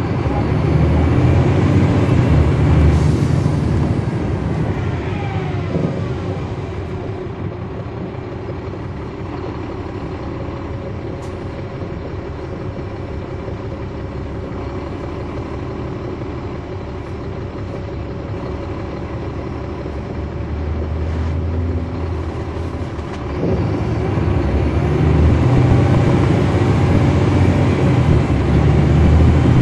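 On-board sound of a 2009 NABI 416.15 transit bus with a Caterpillar C13 diesel and ZF six-speed automatic. The engine is loud at first, then a whine falls in pitch and it settles to a quieter, steady running for several seconds. About three quarters of the way through the engine pulls hard again, getting louder, with a rising whine as the bus accelerates.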